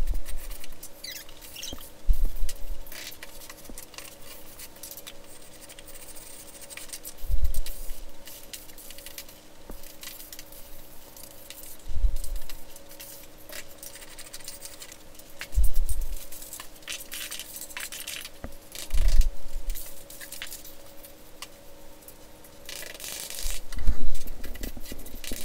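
Steel trowel scraping and smoothing gritty sand-and-cement deck mud, with dull low thumps every few seconds and a faint steady hum underneath.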